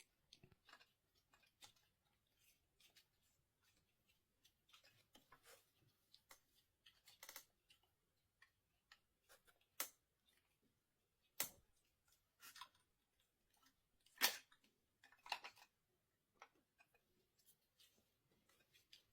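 Faint, scattered metallic clicks and ticks of an Allen key being forced round a tight screw on a Xiaomi Pro 2 e-scooter. The key is not quite the right size, and the screw turns only slowly.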